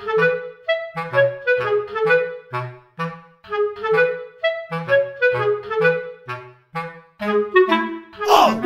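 Background music: a bouncy woodwind melody over short, regular bass notes, with a brief whooshing sound effect near the end.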